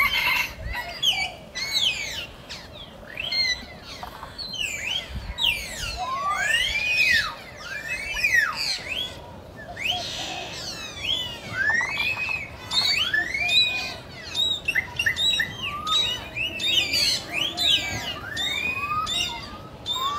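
A chorus of many overlapping high animal calls, several a second, each rising and then falling in pitch.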